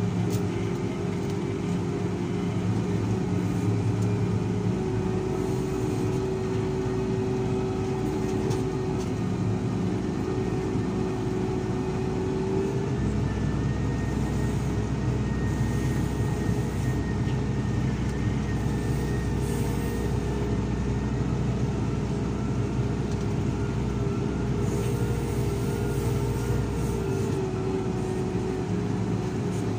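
SDLG wheel loader's diesel engine running steadily as the machine drives, with a steady tone over it. The engine note shifts about 13 seconds in and again near the end.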